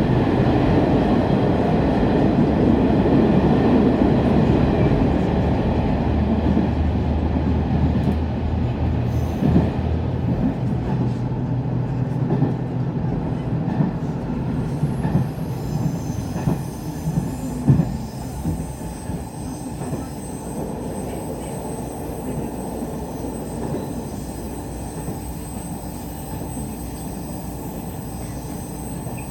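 Diesel railcar heard from inside the cabin. The engine hum and rail running noise are loud at first and ease off after about ten seconds. A few knocks of the wheels over the rails follow, and a faint high wheel squeal comes in over the second half.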